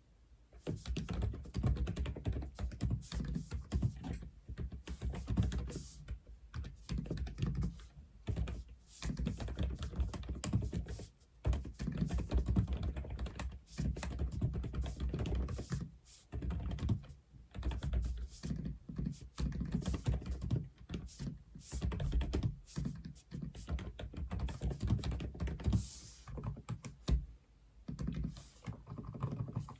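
Typing on an Aula F87 (독거미) mechanical keyboard. Runs of quick keystrokes start about half a second in and are broken by short pauses.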